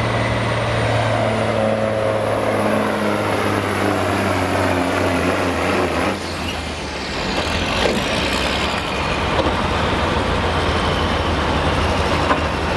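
Semi truck's diesel engine running loud and steady with a high whine above it; about six seconds in, the sound drops briefly and the whine slides down in pitch, then the engine keeps running.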